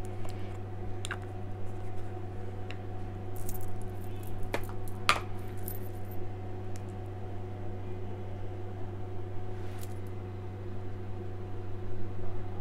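Scattered light clicks and taps of a loose banana setting powder jar and powder applicator being handled while setting makeup, over a steady low electrical hum.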